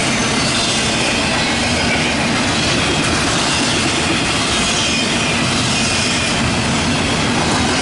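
Cars of a CSX intermodal and autorack freight train rolling past: a loud, steady noise of wheels running on the rails.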